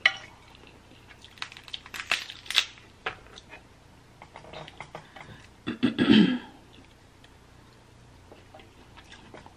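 Snow crab leg shells cracking and crackling in the hands, with wet sucking and chewing of the crab meat, the clicks densest in the first three seconds. A short vocal noise from the eater about six seconds in.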